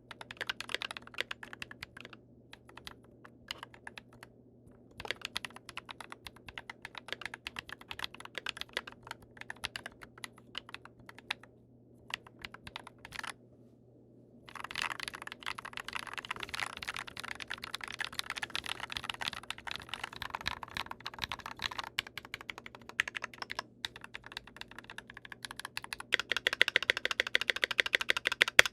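Typing on a GMMK Pro mechanical keyboard with lubed Glorious Panda tactile switches and GMK keycaps: runs of key clacks broken by short pauses. The typing grows faster and denser about halfway through, and is loudest and fastest near the end.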